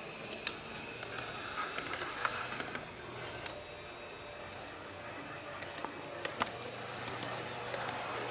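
Heljan Class 128 model diesel parcels unit (OO gauge) running slowly on DC, its motor and mechanism giving a quiet, steady, gentle note, with scattered light clicks.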